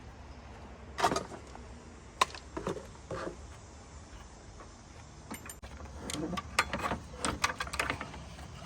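Irregular knocks and clicks, a few spaced ones at first and then a denser clatter in the second half, as of hard objects being handled.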